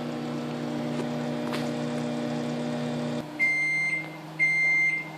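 Microwave oven running with a steady hum that cuts off about three seconds in, followed by two long, high beeps: the end-of-cycle signal that the heating time is done.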